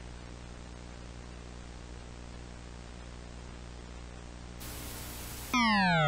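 Steady static hiss over a low electrical hum, the empty sound of a broadcast between messages. About four and a half seconds in, the hiss turns brighter. Half a second later a loud electronic alert tone starts: several pitches sliding down together, the attention signal of a simulated emergency broadcast.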